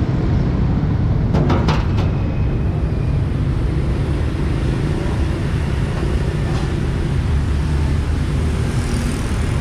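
Steady street traffic, mostly motorbikes and cars passing. About one and a half seconds in come a few sharp metal clanks as a stainless steel tray is set down in a stainless steel cart.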